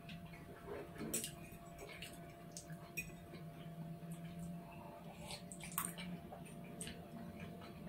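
Faint, scattered clinks and scrapes of metal forks against ceramic plates as people eat, a few sharper clicks among them. A low, steady hum runs underneath.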